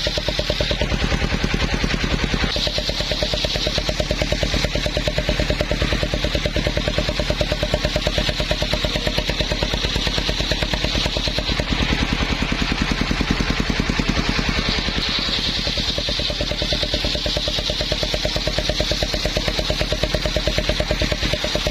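Engine-driven circular saw running steadily, its engine beating at a rapid even pulse. A high whine from the saw comes and goes several times.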